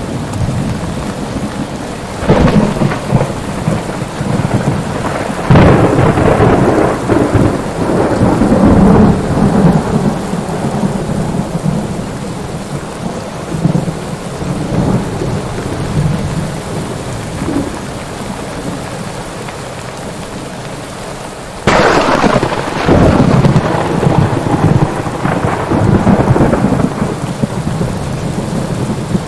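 Steady heavy rain with thunder. Rumbles break in about two and five seconds in and die away slowly. About three-quarters of the way through comes a sudden, loud thunderclap that rolls on for several seconds.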